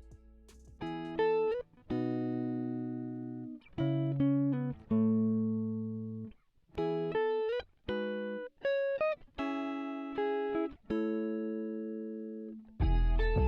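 Background music: a plucked-string melody of separate notes that start sharply and fade, with fuller accompaniment coming in near the end.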